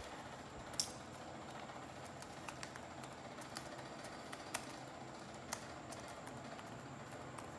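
Paper from an old newspaper page being handled and creased by hand: scattered small crinkles and ticks of paper over a steady faint hiss.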